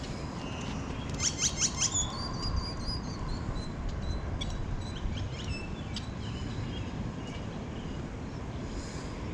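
Small birds chirping: a quick run of sharp chirps about a second in, then thin whistled notes, over a steady low background rumble.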